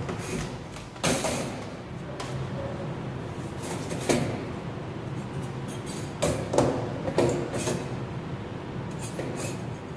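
Clattering knocks and scrapes of a metal Y pole against a plastic dog crate and kennel fittings, one about a second in, another about four seconds in, a cluster between six and eight seconds and two near the end, over a steady low hum.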